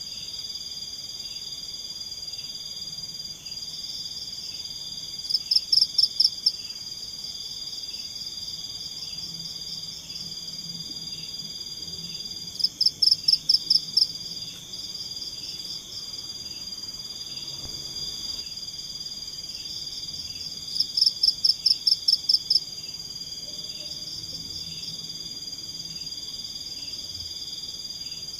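Night forest chorus: a steady high-pitched insect drone with a softer rhythmic pulsing beneath it. Every seven or eight seconds a louder call cuts in, a burst of about eight rapid pulsed notes lasting about a second and a half, three times in all.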